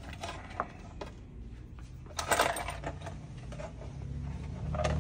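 Small steel flange nuts clinking and rattling in a plastic parts tray as they are picked through and counted by hand, with a few single clicks and a louder clatter about two seconds in.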